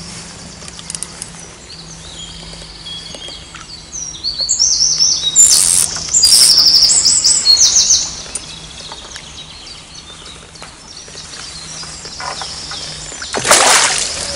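A songbird singing close by in strings of rapid, repeated high chirping notes, loudest for a few seconds in the middle. Near the end comes a short splash of water from the hooked carp being played near the bank.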